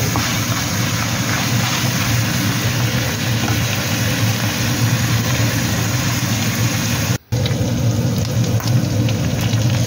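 Minced pork and garlic sizzling steadily in a hot wok, stirred now and then with a plastic spatula, over a steady low hum. The sound drops out for a moment about seven seconds in.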